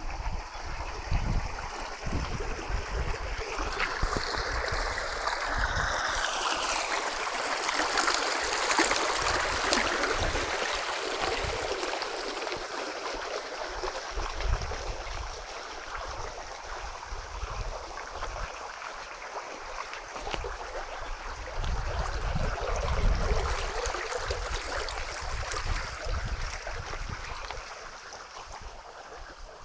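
Water running along a concrete irrigation channel, a steady rushing, louder in the first half and fading toward the end. Wind thumps on the microphone underneath.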